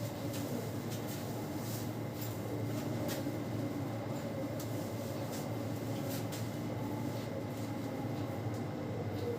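Steady low mechanical hum, with faint scattered clicks and rustles of hands working through hair and scalp during a head massage.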